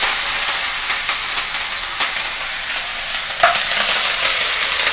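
Curry leaves sizzling and crackling in hot sesame oil in a kadai, a steady frying hiss with scattered pops and one louder pop about three and a half seconds in.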